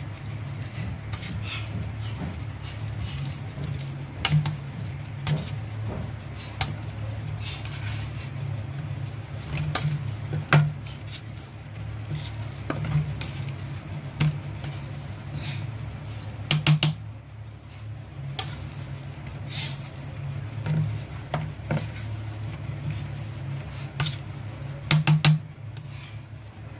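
Steel potato masher pressing boiled potatoes in a stainless steel bowl: irregular clinks and knocks of steel against the bowl every second or two, some in quick pairs, over a steady low hum.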